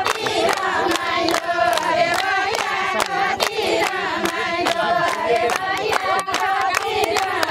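A group of women singing a Nepali ratauli folk song together, with many hands clapping along to the beat.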